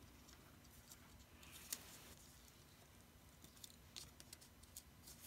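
Near silence with a few faint ticks and rustles of hands handling copper foil tape on card stock, the clearest about a second and a half in and again near four seconds in.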